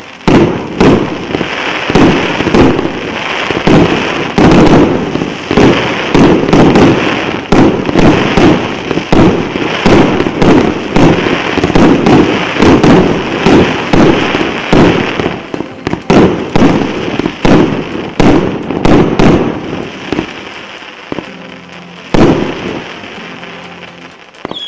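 Richter RBV-2971 consumer firework cake (297 shots, 1 to 1.2 inch) firing a rapid barrage of shots and bursts, several a second. The barrage thins out after about twenty seconds, with a single loud bang near the end.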